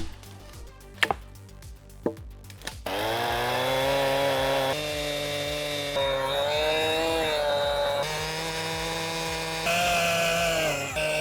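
A few sharp knocks about a second apart, then a chainsaw starts running about three seconds in and cuts wood, its note dipping and rising as the load changes.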